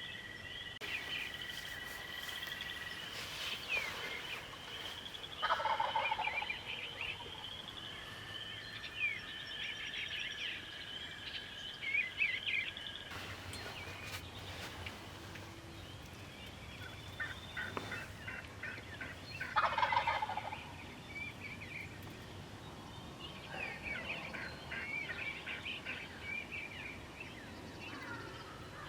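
Wild turkey gobbler gobbling twice, about five seconds in and again near twenty seconds, each a rattling call of about a second. Songbirds sing throughout.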